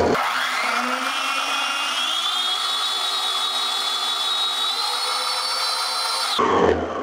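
Electric stand mixer running, beating cream cheese and sugar in its bowl. It gives a steady motor whine that climbs in pitch over the first couple of seconds as the motor speeds up, holds steady, then stops about six seconds in.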